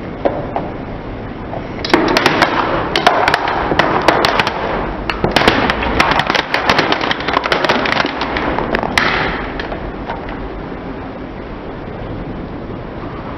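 A car tyre rolling over a plastic toy school bus, the bus's plastic body cracking and snapping in a rapid, irregular run of sharp cracks. It starts about two seconds in and dies away after about seven seconds.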